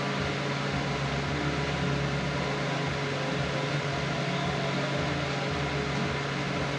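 Steady low machine hum with a constant hiss: continuous background noise of running shop machinery.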